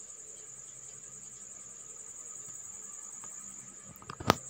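A cricket trilling steadily in the background, a high, finely pulsing tone. Near the end come a couple of light clicks and then one sharp knock.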